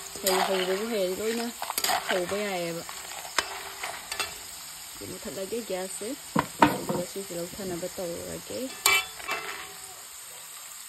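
Banana slices deep-frying in hot oil in an aluminium wok, sizzling steadily, while a metal spoon stirs them, scraping and clinking sharply against the pan now and then.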